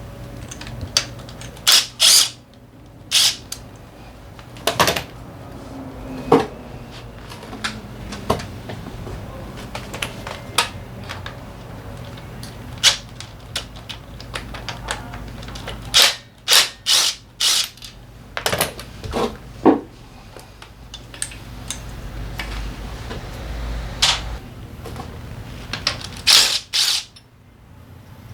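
Hand tools and metal engine parts clicking and knocking irregularly while a Honda PCX 125 engine is being taken apart, with a low steady hum underneath.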